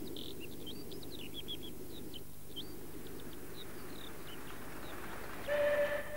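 Garden birds chirping over a low steady rumble; about five and a half seconds in, a short steady whistle blast from the approaching Gauge 1 model locomotive.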